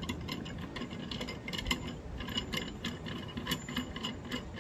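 Irregular light clicks and rattles, several a second, of a miter saw's hold-down clamp and fittings being handled and fitted into place.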